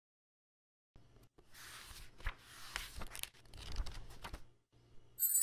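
Paper pages of a book being opened and flipped, starting about a second in: a dry rustle broken by several sharp flicks. Music comes in loudly just before the end.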